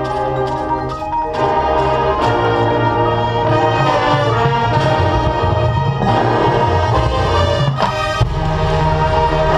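Marching band playing: held brass chords over mallet percussion such as marimba, with short sharp percussion hits throughout.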